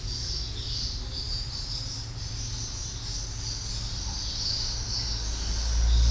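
Insects chirping in a continuous high, pulsing trill, over a low rumble that grows louder near the end.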